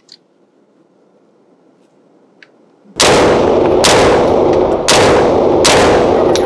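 Heckler & Koch MP5 submachine gun fired on semi-automatic: about four single shots, slightly under a second apart, starting about three seconds in, each echoing off the walls of an indoor range.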